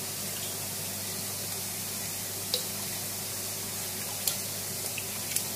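Running water and pump of an aquarium quarantine tank: a steady hiss with a low hum, and a few faint clicks or drips about halfway and near the end.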